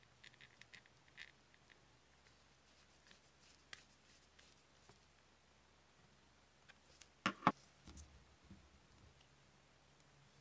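Faint small clicks and ticks from a screw being threaded into a painted cast iron Santa bank and turned with a screwdriver. Two sharper clicks come close together about seven seconds in.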